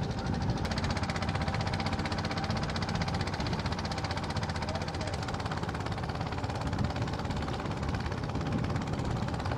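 A boat engine running steadily with a fast, even knocking beat.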